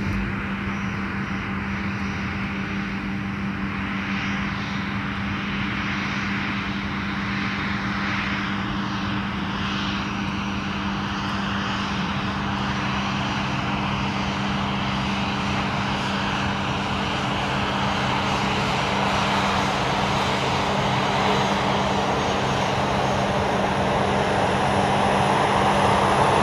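Cabin noise of a large four-engined jet airliner on final approach: a steady rush of engine and airflow noise over a constant low hum, growing louder near the end.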